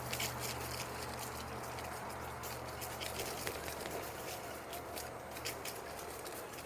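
Footsteps along a leafy trail, with light, irregular crunching and rustling over a steady low hum.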